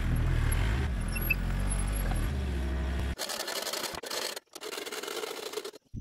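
Mini excavator's engine running steadily while it carries a log. About three seconds in it cuts off abruptly, and a thinner hissing, scraping noise follows.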